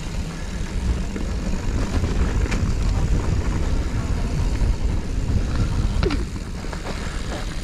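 Mountain bike rolling fast down a dirt trail: a steady low rumble of tyres and wind on the microphone, with a couple of sharp rattles from the bike about two and a half and six seconds in.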